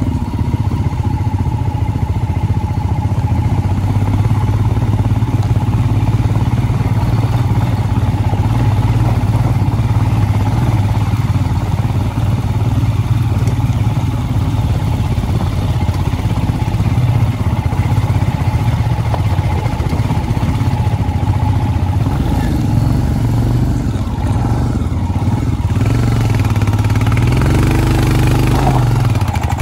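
A motor vehicle's engine running steadily under way; a few seconds before the end its pitch dips and rises again as it changes speed.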